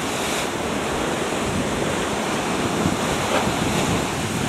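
Sea surf washing against a rocky shore, a steady rush of noise, with wind on the microphone.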